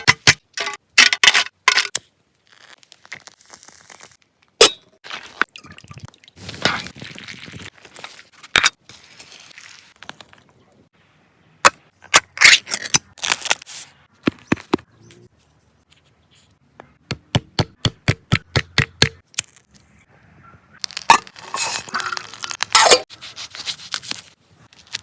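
A string of sharp clicks and cracks with short stretches of rustling and scraping, including a quick run of about six ticks a second partway through.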